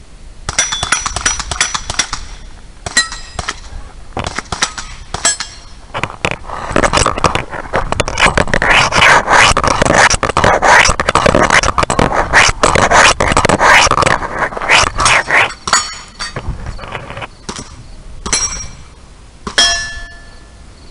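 Gunfire on a shooting stage. Single shots come in scattered groups at first, then turn to fast, nearly continuous shooting from about six seconds in until about sixteen, then a few last shots near the end. Some shots are followed by a short ringing note.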